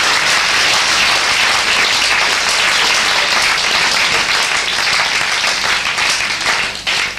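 Audience applauding, dense and steady, easing slightly near the end.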